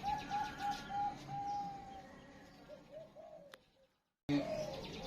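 Zebra dove (perkutut) cooing: a quick run of short rising-and-falling notes, about three a second, ending in one longer held note, then a few fainter notes. The sound cuts out completely for about half a second near the end, then comes back.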